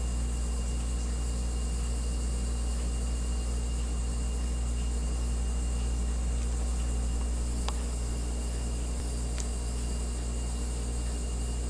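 Steady low hum with an even hiss over it, unchanging throughout, with two faint ticks about two-thirds of the way through.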